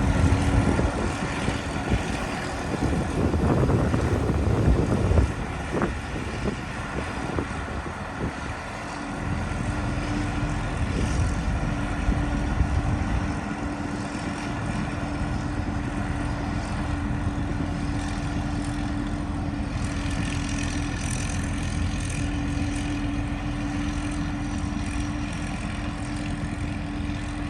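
An engine running steadily with an even hum. It is louder and rougher in the first few seconds, then settles to a constant drone from about ten seconds in.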